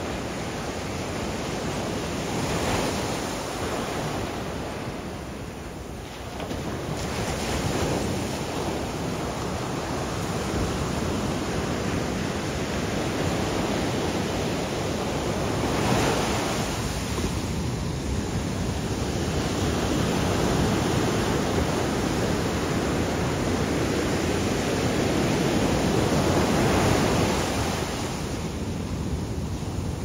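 Ocean surf: small waves breaking and washing up a beach, a continuous rush of water that swells and eases every several seconds as each wave comes in.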